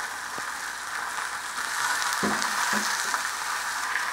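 Shredded cabbage and carrot sizzling steadily in hot oil in a clay pot, with a few light clicks of a metal slotted spoon against the pot.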